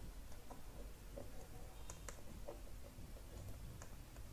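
Faint, irregular light clicks and taps of a stylus on a pen tablet while words are handwritten.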